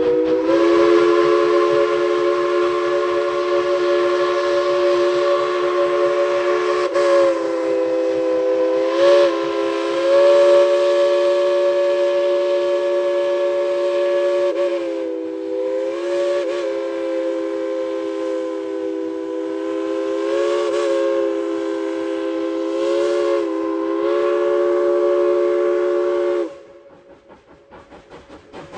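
Steam locomotive chime whistle sounding one long blast of several notes at once. The pitch wavers briefly a few times as the valve is worked, and the blast cuts off sharply near the end.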